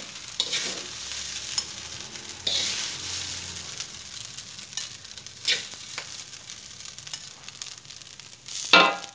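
Metal spatula scraping and scooping fried rice in an aluminium wok, with occasional scrapes against the pan and a light sizzle of the rice on the heat. A brief louder sound comes near the end.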